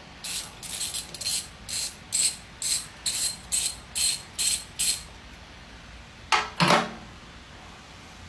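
Ratchet wrench clicking in short, even strokes, about two a second, as a spark plug is loosened from the stump grinder's engine. The clicking stops after about five seconds, and two louder knocks follow a second later.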